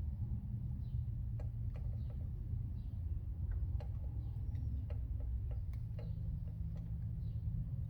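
Irregular small clicks and taps from pit bike carburetor parts being handled and fitted, about a dozen over the stretch, over a steady low rumble.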